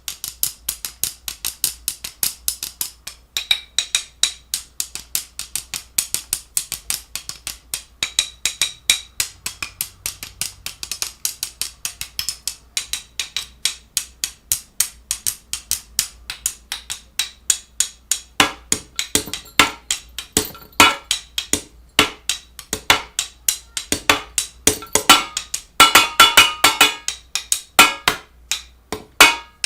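A fast series of sharp clicks and taps, about five a second and somewhat uneven, some with a brief ringing tone in the later part.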